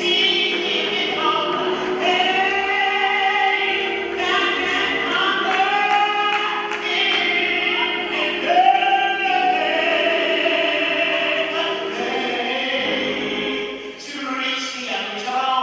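A choir singing a gospel song, with long held notes that bend and glide.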